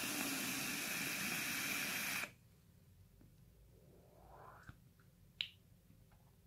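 A long drag of about two seconds on an SXK Narca rebuildable dripping atomizer fired on a VooPoo Drag mod at 55 watts: a steady hiss of air drawn through the atomizer over the firing coil, which cuts off suddenly. A faint exhale of vapour follows, then a brief click.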